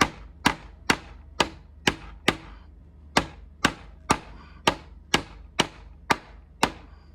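A hammer striking a wooden pressure block to drive sash pulleys into the window frame's jamb. There are about fifteen sharp, even knocks, roughly two a second, with a brief pause a little over two seconds in.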